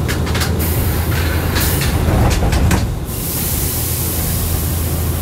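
Nankai 7100 series resistance-controlled electric train running, a steady low hum under it. Irregular clicks and knocks sound through the first three seconds, then a steady hiss sets in.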